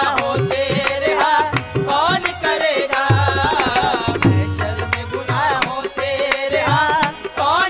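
Instrumental interlude of Sufi devotional music: tabla playing a steady rhythm under a wavering melodic line. The deep bass drum's pitch bends downward about three and four seconds in.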